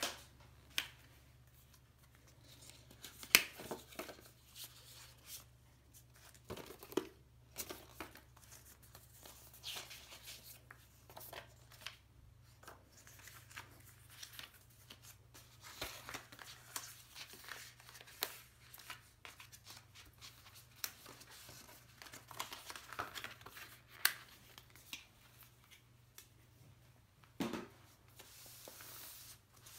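Paper and card packaging being handled and unfolded: rustling and crinkling with scattered sharp ticks and taps, the loudest about three seconds in.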